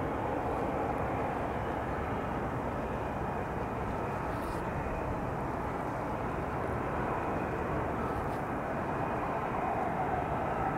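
F-35A Lightning II's single F135 turbofan running at taxi power: a steady jet rush with a faint whine.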